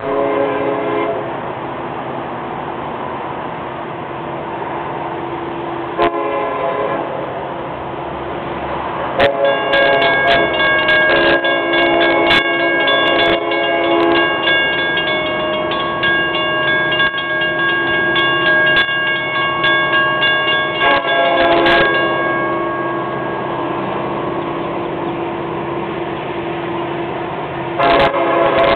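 Air horn of an approaching Florida East Coast freight locomotive blowing for a grade crossing: a short blast at the start, another about six seconds in, a long sustained blast from about nine seconds to about twenty-two seconds, and another starting near the end, several notes sounding together.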